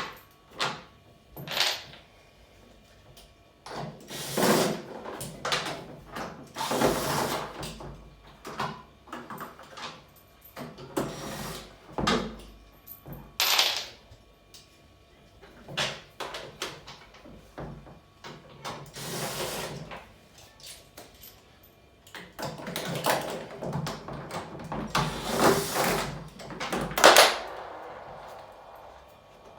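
Irregular knocks, clatter and scraping of tools and washing machine parts being handled, with a longer stretch of rough scraping and rattling in the second half.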